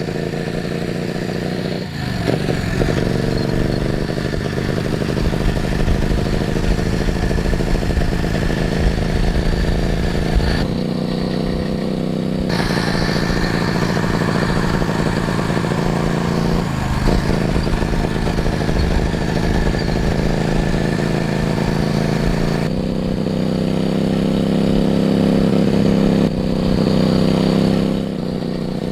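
Homemade engine built from an air compressor, running and revving. Its pitch steps up and down several times.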